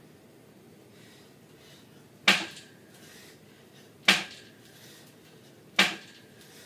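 Metal power tower frame clanking three times, evenly spaced about every second and a half to two seconds, each knock leaving a short metallic ring, in time with pull-up reps.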